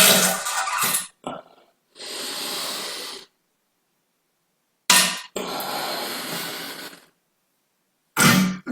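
A series of human farts. A loud, buzzy fart fades out about a second in, then two long, airy hissing ones follow. They are separated by stretches of dead silence, and another loud buzzy one starts near the end.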